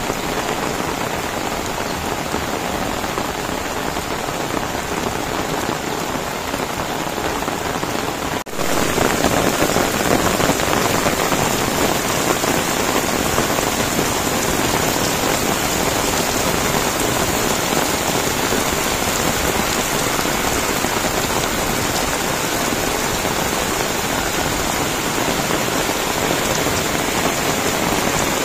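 Heavy rain falling steadily on wet ground and a paved road, a dense unbroken hiss. About eight seconds in it drops out for a moment and comes back louder.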